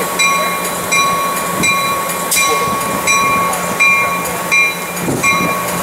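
Passenger train departing, its locomotive running with a steady low hum while a warning bell rings evenly, about three rings every two seconds.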